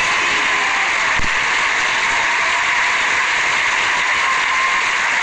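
A large audience applauding, a dense, steady clapping, with a single dull thump about a second in.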